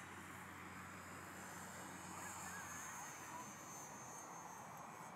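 Faint, thin high whine of a small electric-powered RC warbird flying far off, shifting slightly in pitch as it passes, over a steady outdoor hiss. A few faint chirps come about two seconds in.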